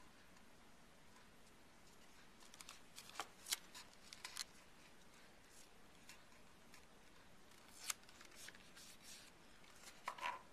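Cardstock and tape being handled on a tabletop: faint, scattered rustles and small ticks over near silence.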